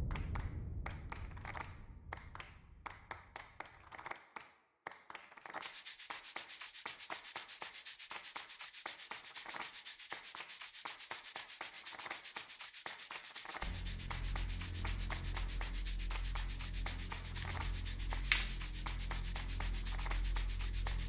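Southord S pick working the pins of a Yale 125/50 padlock against a tensioner: rapid, fine metal scratching and ticking, many small clicks a second. A steady low hum comes in about halfway through, and there is one sharper, louder click near the end.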